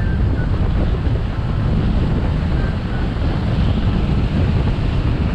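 Steady wind rush buffeting the microphone, with a low rumble of skateboard wheels rolling over asphalt while speeding downhill.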